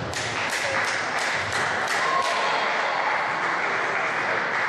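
Table tennis balls clicking off paddles and tables, a quick irregular run of sharp ticks over a steady hum of hall noise.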